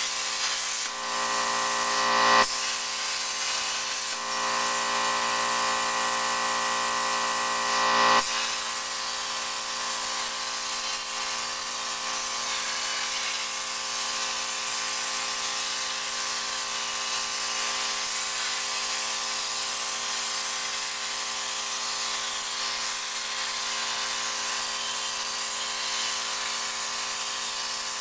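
CNC plasma cutter cutting steel plate: a steady hiss of the plasma arc with a high whine over it. The whine drops out about two and a half seconds in, comes back, then fades away about eight seconds in, leaving the hiss alone.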